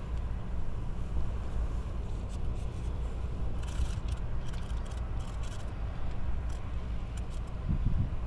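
Steady low background rumble, with a few faint high clicks in the middle.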